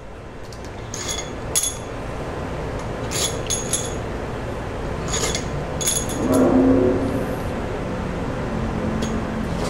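Long steel cylinder head bolts clinking against one another in a hand, a handful of light metallic chinks with a short ring, over a steady background hum. A brief low hum rises and fades about two-thirds of the way through.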